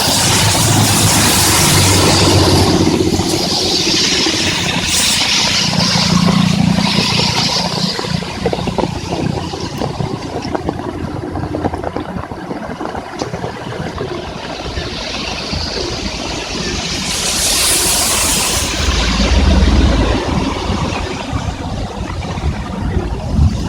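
Heavy rain drumming steadily, with vehicles passing on the wet highway. Their tyre hiss and spray swell and fade several times, most plainly at the start and again about three quarters of the way through.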